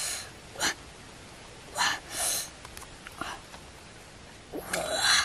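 Close-up eating sounds of someone biting into and chewing ripe jackfruit bulbs: a handful of short mouth noises, with a longer run near the end.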